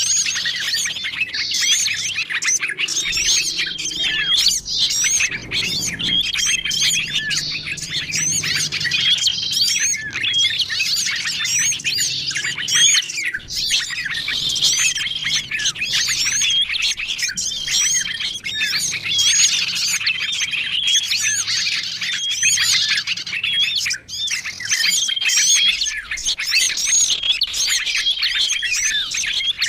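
Bird-lure recording: a dense, overlapping chorus of many small songbirds chirping and trilling at once, with a short flat whistled note repeating about once a second.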